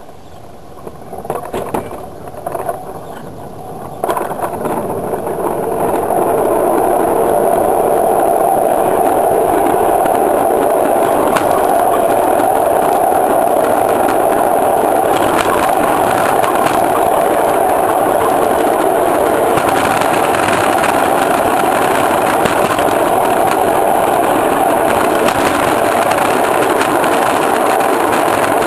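A ride-on miniature railway train's wheels running on the track, heard from the caboose: a few scattered knocks at first, then a steady rumble that builds over a couple of seconds as the train gets under way and holds level.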